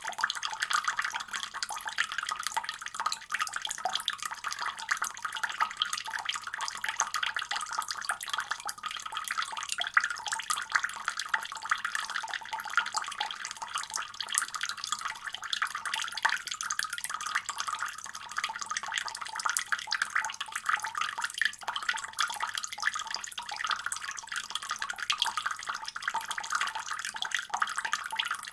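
Water tap running in a steady stream, a continuous fine splashing hiss that stays even throughout.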